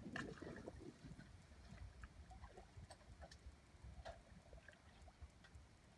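Near silence: faint water sloshing in the first second as a wire-mesh submarine cage trap is worked into a creek bank, then scattered faint clicks.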